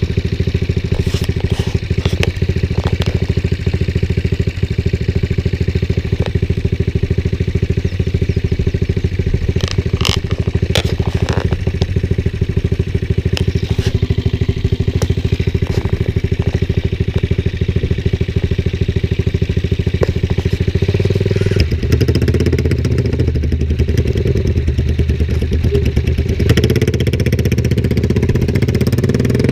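Motorcycle engines idling steadily, with scattered clicks and knocks. About two-thirds of the way through a deeper engine note joins in, and near the end an engine revs up.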